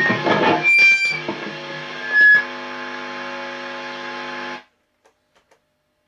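Electric guitar strings ringing through a high-gain Marshall JVM410H amp in a sustained chord, with scrapes and handling noise and two short bright squeals over it. The sound cuts off suddenly near the end, followed by a few faint clicks.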